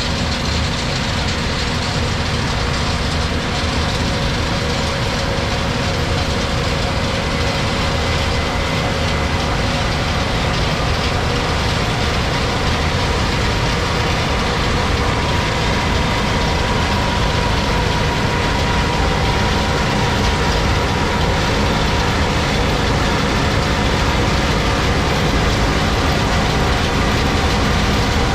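Case IH 8250 combine harvester running while harvesting wheat: the engine and threshing machinery make a loud, steady drone with a few held tones.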